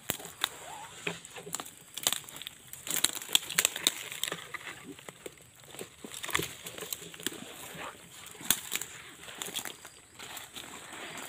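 Footsteps crunching through dry leaf litter and twigs, with plants brushing and sticks cracking underfoot: a run of irregular crackles and rustles.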